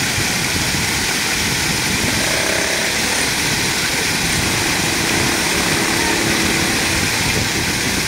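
Arching fountain jets splashing down onto a paved walkway and its drain grating, a steady rush of falling water.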